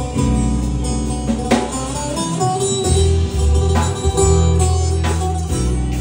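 Live band music: a strummed acoustic guitar over deep held bass notes, with a couple of strong accented strokes.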